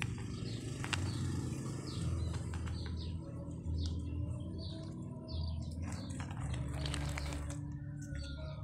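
Small birds chirping, short high calls repeated throughout, over a low steady rumble, with a few light clicks from handling plastic toys and a plastic bag.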